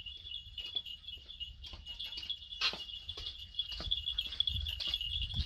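A steady, high, slightly pulsing insect chorus, with scattered light clicks and taps over it.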